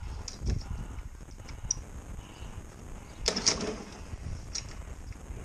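Etesia Pro 46 lawnmower being pull-started: two short pulls of the recoil starter, about half a second in and about three seconds in. The engine turns over but does not catch yet.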